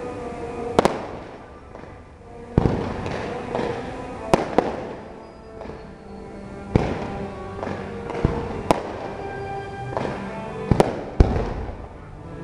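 Fireworks shells bursting with sharp bangs every second or two, with music playing steadily underneath.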